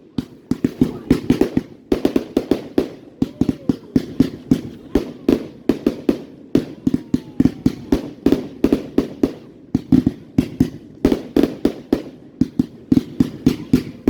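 Fireworks going off in a rapid, continuous barrage, several sharp bangs a second with hardly a pause.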